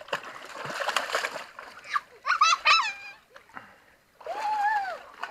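Water splashing in a shallow creek as a husky lowers itself down to lie in it, followed by a few short high-pitched cries.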